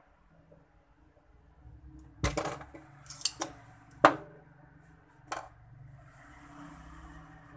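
A few sharp clinks and knocks of small metal tools being picked up and handled on a hard work surface, the loudest about four seconds in.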